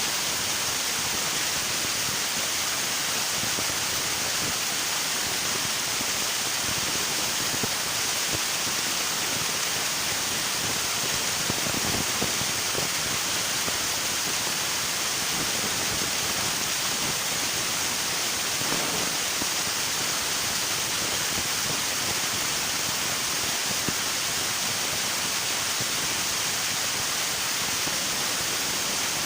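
River water rushing and splashing steadily over rocks, an unbroken hiss of flowing water with a few slightly louder splashes around the middle.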